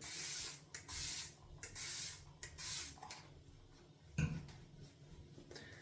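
Water spray bottle spritzing four times in quick succession, adding water to shaving lather, followed by a single knock about four seconds in.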